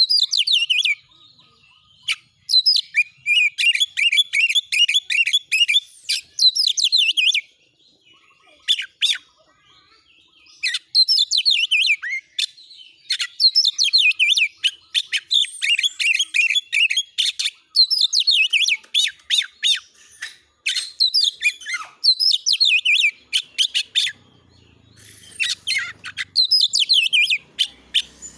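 Oriental magpie-robin (kacer) singing in loud, rapid bursts of high, sweeping notes, each burst lasting a couple of seconds with short pauses between. This is the persistent, agitated 'nembak' singing of a fired-up kacer.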